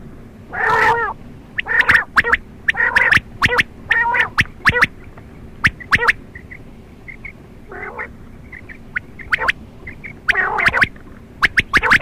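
Quail calling: about six short, harsh, squawky calls of roughly half a second each, mixed with many sharp clicking notes and a few faint short pips in between.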